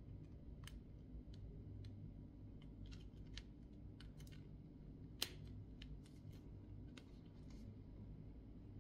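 Small, scattered clicks and light scrapes of thin metal stiffener strips being slid into a wiper refill blade's groove, with one sharper click about five seconds in, over a faint low hum.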